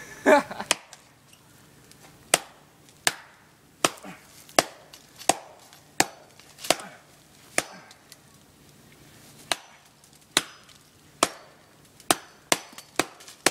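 Chopping into a tree trunk by hand: a string of sharp wooden strikes about once a second, pausing briefly midway, then coming faster near the end.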